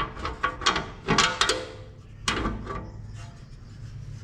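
Metal clinks and knocks, some briefly ringing, from hand tools and bolts worked against the stump grinder's steel mulch plate while it is fitted. Most of the strikes fall in the first two and a half seconds.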